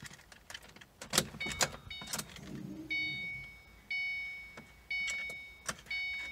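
Keys clicking and rattling in a Ford Mustang GT's ignition. From about three seconds in, the car's warning chime dings about once a second, each ding ringing out. The engine does not crank because the clutch pedal is not pressed.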